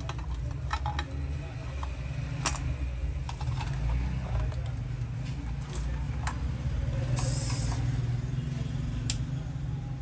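Scattered clicks and light knocks from handling a sewing machine's power cord and plastic casing, over a steady low hum, with a brief hiss about seven seconds in.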